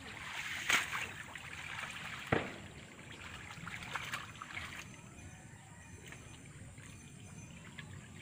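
Hands splashing and sloshing through the shallow, muddy water of a drained fish pond while groping for fish. Two sharp splashes come in the first few seconds, then a softer steady trickling and sloshing.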